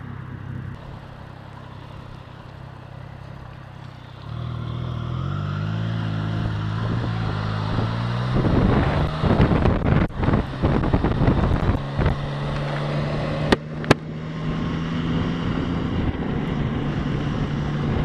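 Triumph Tiger 660 motorcycle's three-cylinder engine running low and steady, then about four seconds in pulling away with its pitch climbing as it accelerates. Wind rush builds on the microphone as speed rises, before the engine settles into a steady cruise. Two sharp clicks come about three-quarters of the way through.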